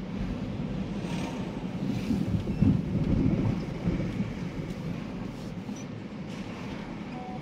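Car engine and road noise heard from inside the cabin while driving slowly, a steady low rumble that swells louder about two seconds in and eases off after about four seconds.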